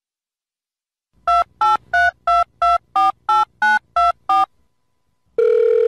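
Telephone keypad (DTMF) tones: ten short two-pitch beeps in quick succession, like a phone number being dialed. Near the end they are followed by one long steady telephone tone.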